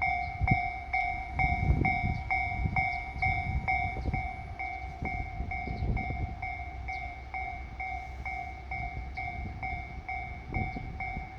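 Japanese level-crossing warning bell ringing steadily at about two strokes a second, over the uneven low rumble of a JR Shikoku Series 1500 diesel railcar.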